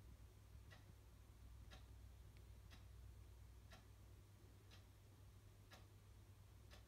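Near silence: faint, even ticks about once a second, like a clock, over a low steady hum.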